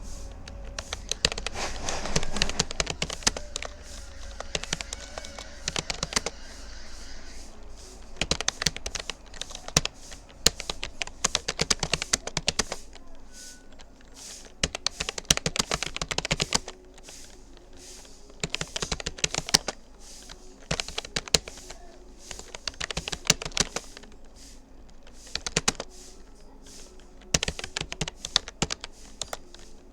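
Rapoo computer keyboard being typed on fast, key clicks coming in rapid runs broken by short pauses.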